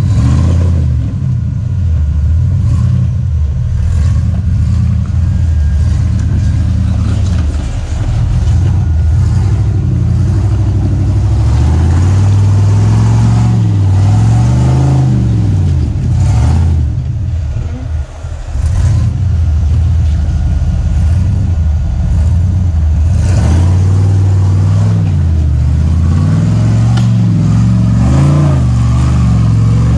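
Off-road vehicle's engine running under load at crawling speed, its revs rising and falling again and again as it works over the obstacles. Occasional knocks and clatter come through over it.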